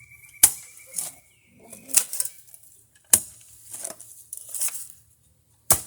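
Digging tool striking and scraping in dirt: four sharp hits spaced one to two and a half seconds apart, each followed by a short gritty scrape.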